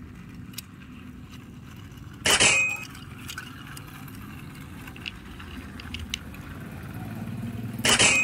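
Plastic toy train wagons being coupled by their hook couplings: two sharp plastic clacks, about two seconds in and near the end, with a few faint ticks between. A low rumble in the background grows toward the end.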